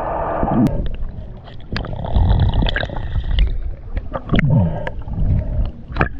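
Water sloshing and gurgling around swimmers, with irregular short splashes.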